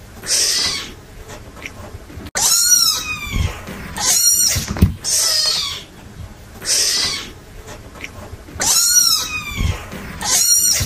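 Young kittens mewing: a string of about seven thin, high-pitched mews, a second or two apart, some sliding down in pitch.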